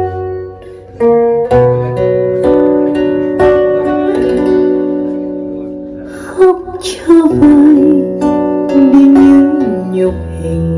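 Vietnamese sentimental ballad (nhạc trữ tình) music played back over a hi-fi system with large horn loudspeakers. Plucked-string notes ring out, and a wavering held melody line comes in about six seconds in.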